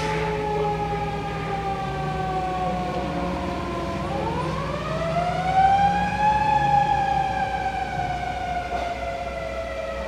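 Fire rescue truck's siren wailing as the truck drives off. Its pitch slowly falls, sweeps back up about four seconds in, peaks, and slowly falls again.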